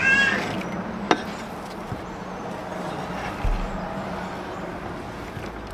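Kitchen knife scraping chopped onion across a wooden cutting board into a wooden bowl, the pieces dropping in, with a sharp click about a second in. A brief high-pitched call right at the start.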